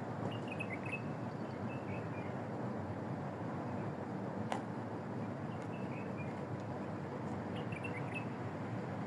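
Steady low outdoor background noise, with faint high chirps in short groups every couple of seconds and one sharp click about halfway through.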